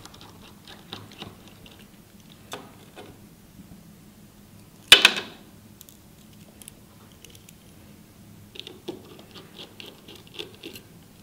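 Small metal clicks and ticks of a precision screwdriver working the screws and metal cover plate inside an opened iPhone 6, with one sharp clack about five seconds in and a quick run of small clicks near the end.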